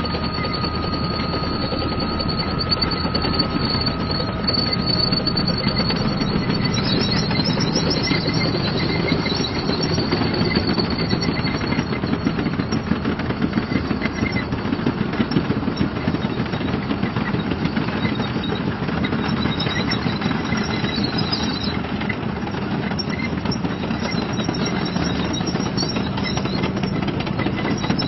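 Leopard 2A4 tank on the move: its V12 diesel engine running and its steel tracks clattering in a steady, dense rattle.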